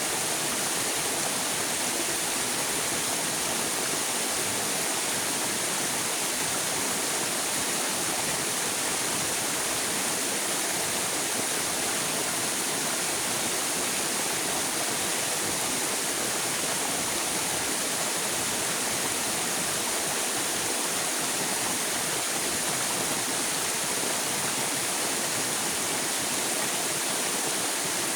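River water flowing and rushing, a steady, unchanging wash of sound.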